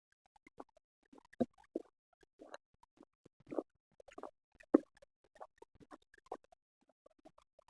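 Someone eating momos: scattered, irregular short clicks and smacks of chewing and mouth noises, with the louder ones a few times about a second apart.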